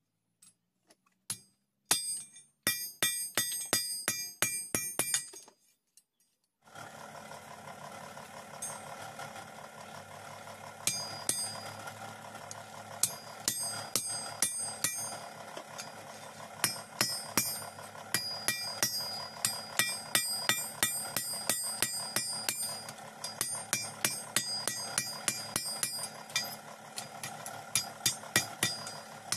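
Blacksmith's hand hammer striking red-hot iron on a flat iron anvil: runs of ringing metallic clinks, several a second. After a short break about six seconds in, the hammering resumes over a steady rushing noise.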